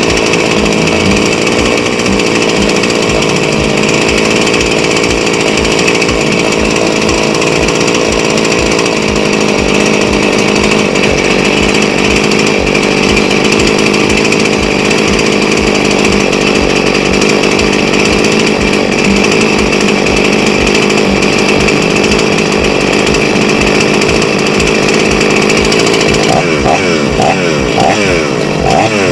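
Rebuilt Husqvarna 266 two-stroke chainsaw engine running steadily, freshly carburettor-tuned after the rebuild. Near the end the sound turns choppy, with quick repeated rises in pitch.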